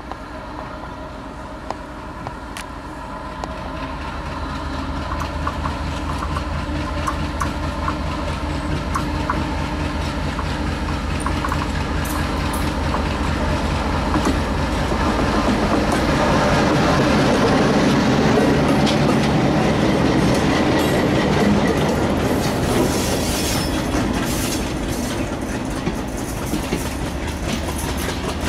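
WDM-3A diesel-electric locomotive, with its ALCO 16-cylinder engine, running as it approaches and passes close by, growing louder to a peak a little past halfway. The coaches then roll past with a clickety-clack of wheels over the rail joints.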